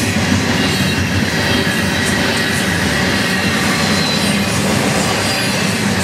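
Double-stack intermodal container well cars rolling past on a curve, making a steady loud rumble of steel wheels on rail. A faint high squeal from the wheels rounding the curve runs over it.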